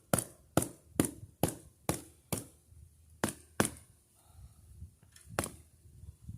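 Hatchet chopping at tree branches: sharp blows at about two a second, then a short pause, two more blows, and a single last blow near the end.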